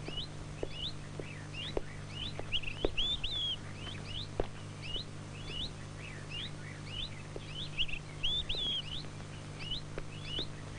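Small birds chirping, short rising chirps repeated two or three times a second, over a faint steady low hum.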